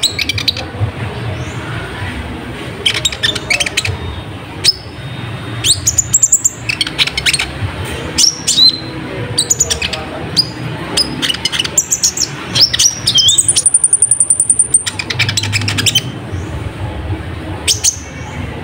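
Olive-backed sunbird singing busily: sharp, high chirps and upswept notes, broken by a fast, high trill about thirteen seconds in.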